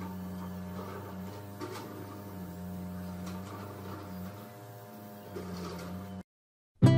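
Paint-spraying equipment running with a steady low motor hum and faint short hisses from the spray gun as finish is sprayed onto a pine chair. It cuts off abruptly about six seconds in, and strummed acoustic guitar music begins at the very end.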